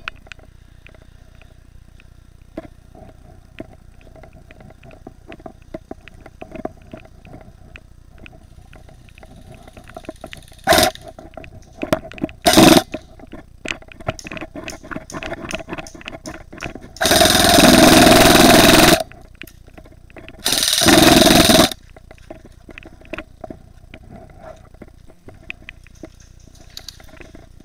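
Airsoft gun firing two loud full-auto bursts, the first about two seconds long and the second about a second long a moment later, after a couple of single sharp cracks. Faint scattered clicks and crunches run underneath.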